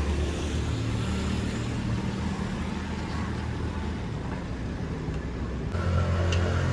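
Road traffic: vehicle engines running with a steady hum. Near the end a sound with several steady tones comes in over it.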